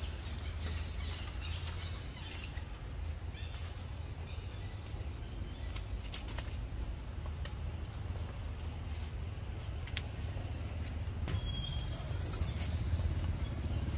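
Forest ambience: a steady, high insect drone over a low rumble, with scattered faint clicks and a short rising bird chirp near the end.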